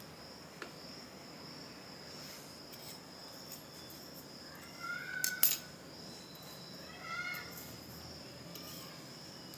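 Steady high-pitched insect chirring, like a cricket, with two brief pitched chirps about five and seven seconds in and a single sharp click just after the first.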